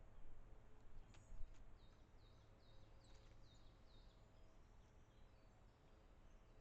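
Faint birdsong: a songbird repeats a short, high, downward-slurred whistle about three times a second. Two sharp taps come about a second in.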